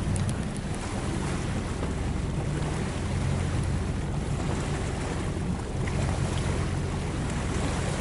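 Boat engine running at a steady low hum, with wind on the microphone and the wash of water.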